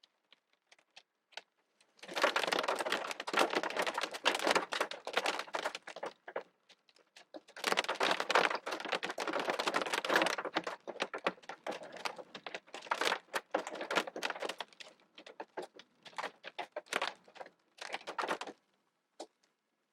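Hail hitting the car, heard from inside it: a dense rapid clatter of small hits that starts about two seconds in and comes in two heavy spells. After that it thins to scattered, lighter hits that stop shortly before the end.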